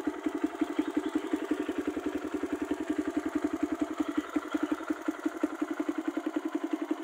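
Kawasaki KLX 150 BF's single-cylinder four-stroke engine idling steadily through a Norifumi RV1 aftermarket exhaust, an even run of rapid exhaust pulses.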